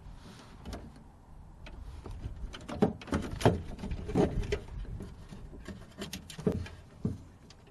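Irregular knocks, clicks and rattles of metal parts being handled and fitted by hand inside a car door, picking up about two seconds in, with several sharper knocks.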